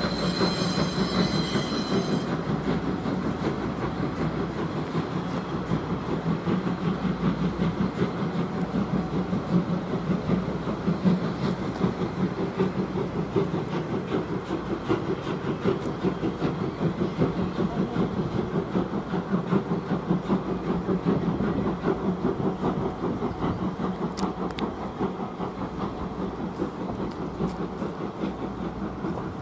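C58 239 steam train passing: the last second or two of a steam whistle blast, then the steady rumble and clickety-clack of the locomotive and coaches running on the rails, slowly fading as the train moves away.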